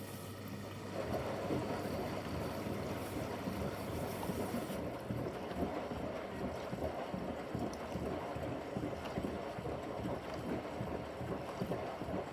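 Bosch washing machine on its Quick 15 programme, water sloshing and splashing in the turning drum with a pillow inside: a steady churning with irregular splashes and a brighter hiss over the first few seconds.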